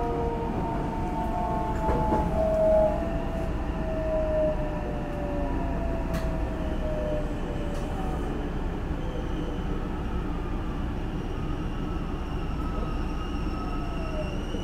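Hankyu 9000 series electric train running, heard from inside the car: the whine of its Toshiba IGBT VVVF inverter and traction motors over a steady rumble of wheels on rail. Several inverter tones fall in pitch over the first few seconds as the train slows for the next station, and a few higher tones rise slowly later on.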